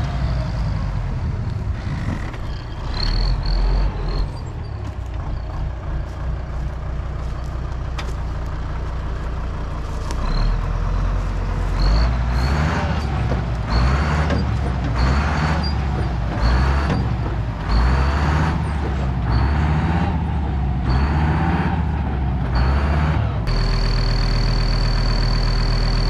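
Deutz DX 90 tractor's air-cooled diesel engine working hard under load while pulling on a tree stump. From about halfway it surges roughly once a second, with a brief high squeak at each surge. Near the end it settles to a steady idle with a thin high whine.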